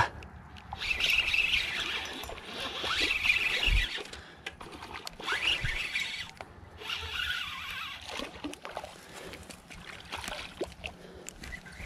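Spinning reel being cranked in short bursts of about a second each, with brief pauses between, as a hooked fish is reeled in.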